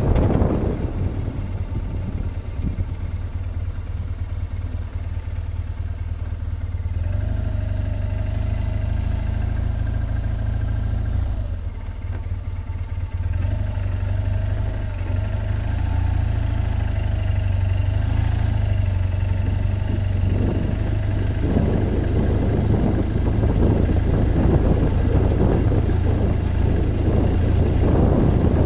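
Motorcycle engine running at low road speed, its note dipping briefly about 12 seconds in. From about 21 seconds a rougher, noisier sound joins it.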